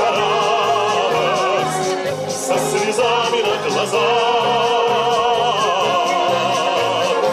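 Music: operatic singing with a wide vibrato on long held notes over an orchestral accompaniment.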